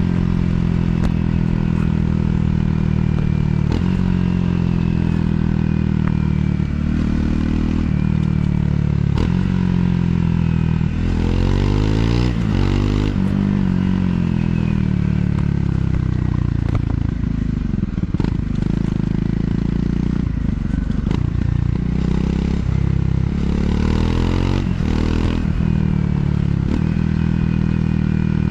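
Triumph Scrambler 400 X's single-cylinder engine running under way, its revs rising and falling twice, about a third of the way in and again near the end. There is wind noise on the microphone.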